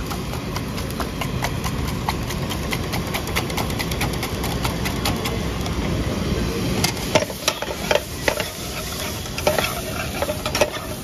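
Coil-spring egg whisk beating eggs in a steel mug, a quick clicking and rattling against the metal. From about seven seconds in come sharper, spaced knocks and scrapes of a spatula in a frying pan as the egg mixture is stirred. A steady low rumble runs underneath.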